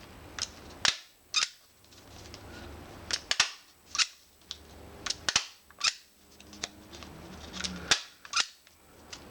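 MAX HD-50DF twin-lever flat-clinch desk stapler being worked again and again through a 16-layer folded sheet of paper: a run of sharp clacks, often two close together per stroke, about one stroke every one to two seconds.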